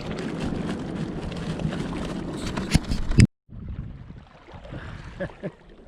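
Wind buffeting the microphone over sea surf, with a couple of sharp knocks near three seconds in. The sound then cuts off abruptly and resumes as quieter wash with small clicks.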